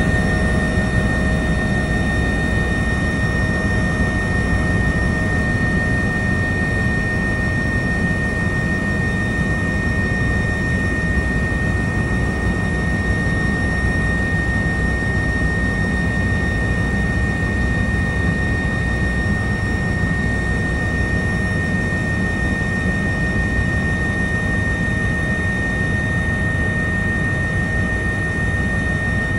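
Airbus H145 helicopter in climbing flight, heard from on board: a steady loud rumble of rotor and engines with a constant high-pitched turbine whine over it.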